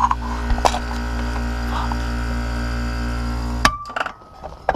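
Air conditioner condenser running with a steady hum, its compressor started again on newly repaired terminal wiring and drawing about 18 amps, with a few light metal clinks. About three and a half seconds in a sharp click comes and the hum cuts off suddenly as the unit is switched off.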